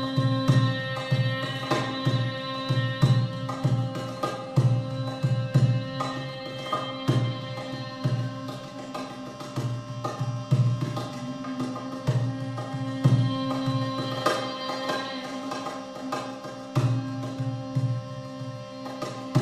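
Live percussion music: frequent drum strokes, with low thuds several times a second, over steady ringing sustained tones.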